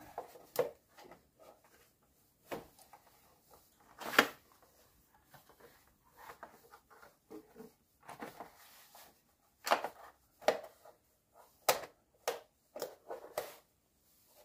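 Hard plastic timing-belt cover of a VW Lupo engine being pushed and clipped back into place by hand: irregular clicks, knocks and rattles of plastic. The loudest knock comes about four seconds in, and a run of sharp clicks follows near the end.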